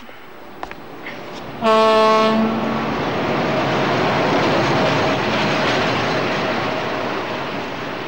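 An electric locomotive's horn sounds once, a loud steady tone about a second and a half in that lasts about a second, followed by the steady rumble of the train running on the rails.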